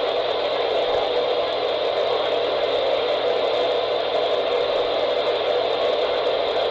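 Steady radio static hiss from a weather radio receiver carrying no speech, even and unchanging in level.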